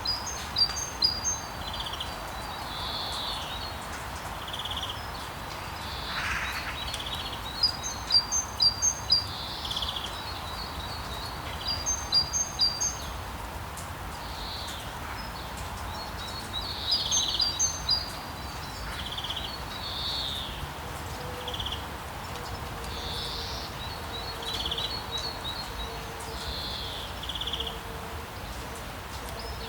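Several small birds chirping, in short high trills and runs of quick notes every few seconds, over a steady hiss of outdoor background noise.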